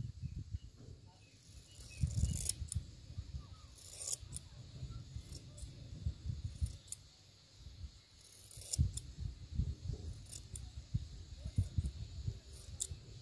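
Small scissors snipping the ends of a lock of long hair: scattered sharp, crisp clicks of the blades every second or two, over a low rumble.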